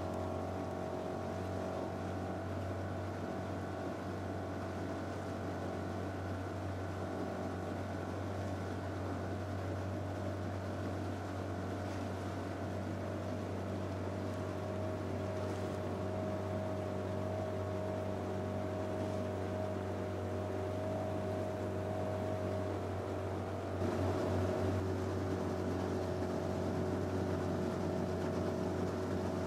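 Outboard motor of a following motor launch running steadily, a hum with steady tones whose pitch drifts slightly; it gets a little louder and its note shifts about 24 seconds in.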